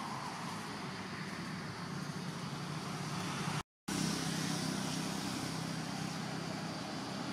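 Steady low rumble of road traffic, with a brief dropout a little over three and a half seconds in.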